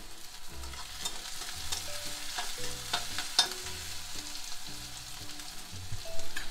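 Chopped onions sizzling in oil in a metal kadai, frying on a low flame to brown. A steel spatula stirs them, clinking and scraping against the pan several times.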